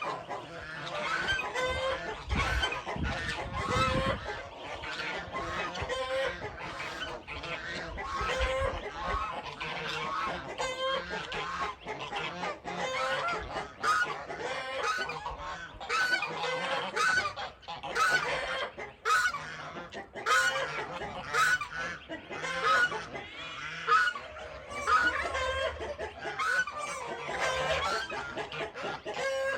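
A flock of farm geese honking: repeated honks, about one a second or more, overlapping.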